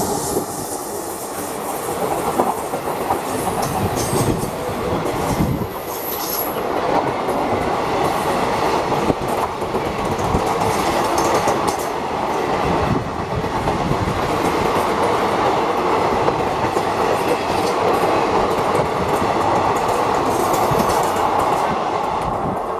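Express train hauled by a WAP-4 electric locomotive passing close at speed, its long rake of coaches going by with wheels clattering steadily over the rail joints.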